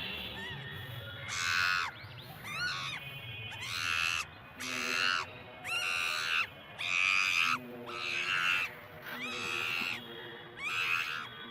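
A series of short, harsh animal calls, about one a second, some sliding up and down in pitch.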